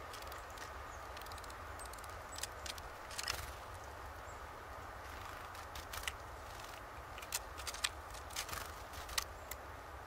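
Scattered sharp taps and clicks, some in small clusters, of small birds pecking and hopping on a wooden seed feeder, over a steady low background rumble.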